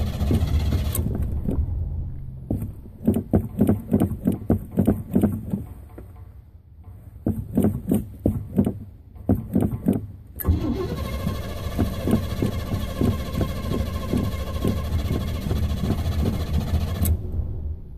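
Car engine being cranked on the starter over and over without catching: several attempts of a few seconds each with short pauses between, a hard start after refuelling.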